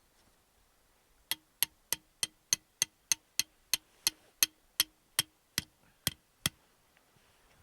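A run of about eighteen sharp knocks, roughly three a second, each with a short low ring; they start about a second in and stop near the end.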